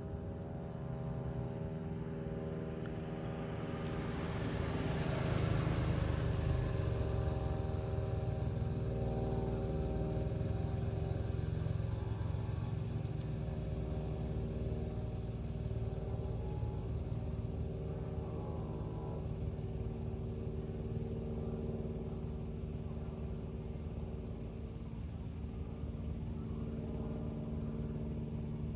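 Cessna L-19 Bird Dog's flat-six piston engine and propeller droning steadily as the plane flies over. It grows loudest, with a rushing hiss, about five seconds in, then carries on a little fainter.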